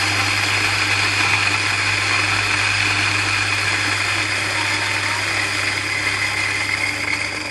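Feima 600N electric coffee grinder running, grinding coffee beans at setting 4: a steady motor hum under the dense hiss of beans being ground.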